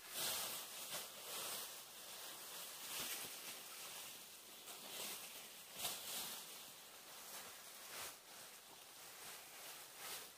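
Thin clear plastic sheeting rustling and crinkling as it is unrolled and pulled across a bamboo-pole roof. It is faint and uneven, with a few sharper crackles: one just after the start, one about six seconds in and one about eight seconds in.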